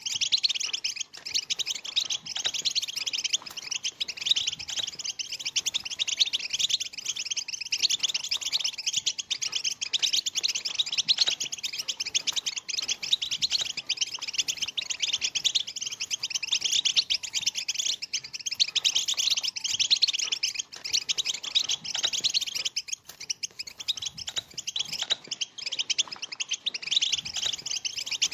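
A flock of European goldfinches, many of them juveniles, twittering and chirping all at once in a dense, unbroken chorus of quick high notes and trills.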